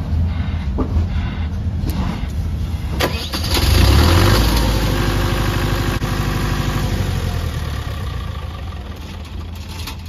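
Diesel engine of an iPower generator set starting: it catches and runs up about 3 s in, runs steadily, then dies away over the last few seconds as the control panel shuts it down on a fault.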